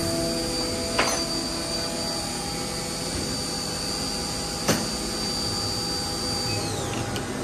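A machine running steadily with a hiss and a thin high whine that winds down about seven seconds in. Two sharp clicks come, about one second and five seconds in.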